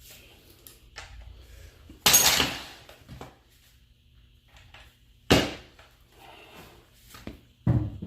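Metal tools and car parts clanking and knocking, with three loud sharp clanks and lighter clicks between them, while the bolts on a front strut's top mount are worked loose.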